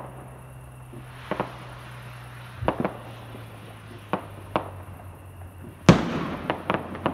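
Fireworks going off: a string of separate bangs over a steady hiss. The loudest bang comes about six seconds in and is followed by a quick run of smaller crackling pops.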